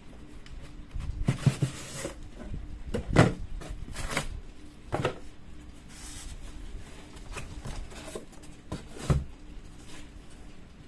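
An alarm clock being handled and set down on a hard surface: about a dozen irregular knocks and clicks, the loudest about a second and a half in, around three seconds in, and near the end.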